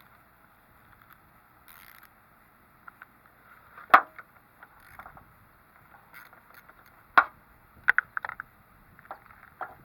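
Scattered sharp clicks and knocks of tools and parts being handled during work on a car: a loud one about four seconds in, another about seven seconds in, then a quick cluster of several just after.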